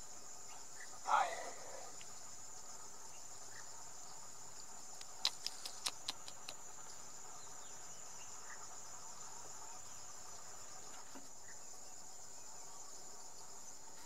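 Steady high-pitched insect chorus, crickets singing in the jungle. About five seconds in, a quick run of about seven sharp clicks.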